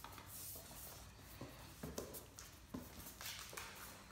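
Faint, irregular clicks and taps of Great Dane claws and paws on a hard stone floor, about eight scattered ticks as the adult and puppy move around.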